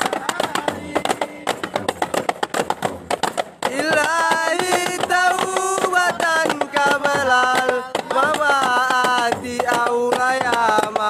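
Hand-beaten frame drums (rebana) playing a fast, dense rhythm. About four seconds in, a group of voices starts chanting an Arabic devotional song (hadrat) over the drumming.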